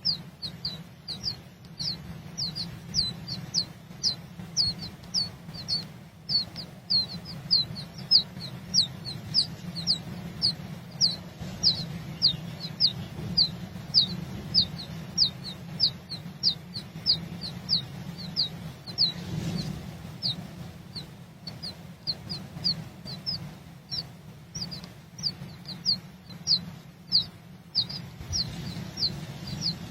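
A bird calling over and over, a short high note that falls sharply in pitch, repeated about twice a second without a break, over a steady low rumble.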